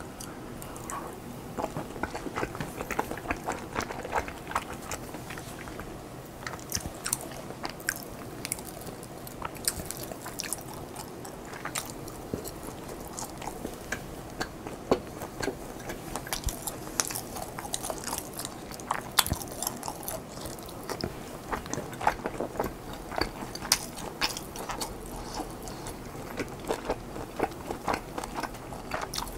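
A person biting and chewing food close to the microphone: a steady run of irregular small wet clicks and crunchy snaps.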